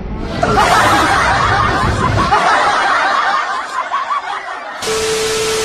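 Laughing and snickering, many wavering voices at once. Near the end it gives way to a steady single horn tone with a hiss.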